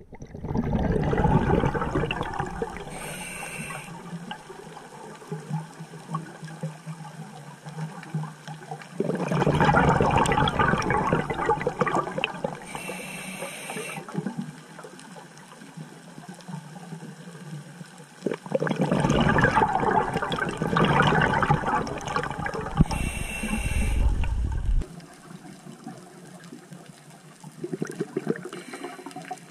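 A scuba diver breathing through a regulator underwater: three rushes of gurgling exhaled bubbles about nine seconds apart, each ending with a short high hiss.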